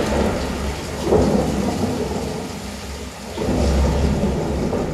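Heavy rain and rolling thunder from a Dolby Atmos demo trailer, played through a Sennheiser Ambeo soundbar and picked up by a microphone in the room. Deep rumbles swell about a second in and again a little past three seconds, over a steady wash of rain.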